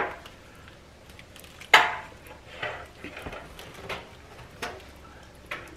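A metal serving spoon clinking and scraping against dishes as shredded barbecue chicken is scooped into a glass bowl. A sharp knock comes a little under two seconds in, then lighter clinks follow about every second.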